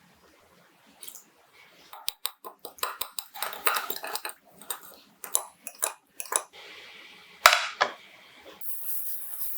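Kitchen dishes and utensils clinking and clattering in a quick run of knocks, with one sharp, loud knock about seven seconds in. A steady hiss starts near the end.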